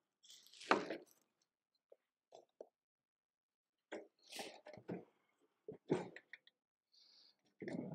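Packing material rustled and crunched by hands working inside a wooden shipping crate, in irregular bursts of handling noise, loudest about a second in.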